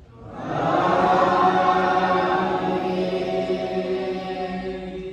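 A man's voice chanting one long, drawn-out note with a slight wavering ornament, in Friday-prayer chant. It swells in over the first second and tapers off near the end.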